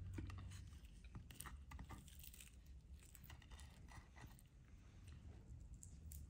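Faint eating sounds: crisp whole fried fish being pulled apart by hand and chewed, a scatter of small crackles and ticks.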